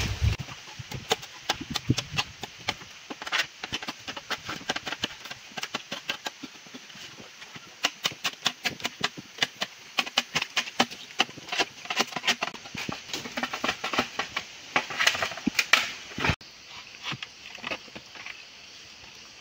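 Dry leaves and twigs crackling and snapping in quick, irregular clicks as a patch of jungle ground is cleared by hand.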